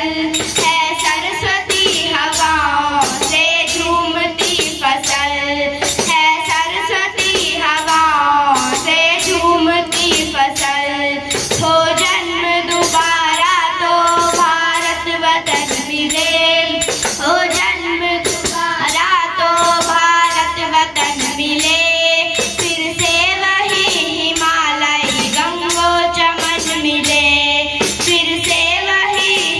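A group of girls singing a song together, over a tambourine shaken to a steady beat.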